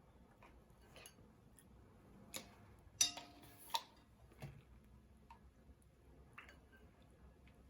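Quiet, scattered clicks and taps of a utensil against a bowl as borax activator is mixed into slime. The loudest is a short ringing clink about three seconds in.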